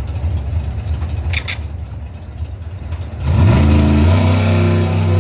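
Drag-racing doorslammer engine rumbling low at the starting line, then about three seconds in revving up sharply and holding high revs as the car launches. A brief sharp double click comes about a second and a half in.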